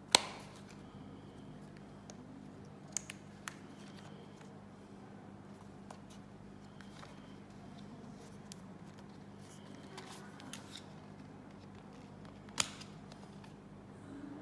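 Sharp clicks and snaps from handling an iOutdoor T2 rugged phone as its rubber port covers are pressed shut and pried open. The loudest snap comes right at the start and another about twelve seconds in, with a few lighter clicks around three seconds and ten seconds.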